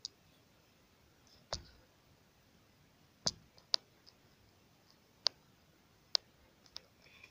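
Sharp, irregular clicks and light taps, roughly one a second, over a faint steady hiss.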